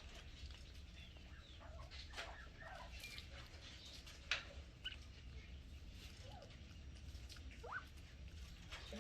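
Quail and bobwhite pecking at food and giving soft, short calls, with scattered clicks. The loudest click comes a little past four seconds in, and a short rising call comes near the end, over a faint steady low hum.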